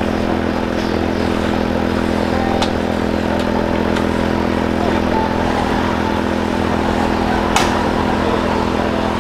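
A small engine running at a steady speed with an unchanging note. A few sharp clicks cut across it, the loudest about seven and a half seconds in.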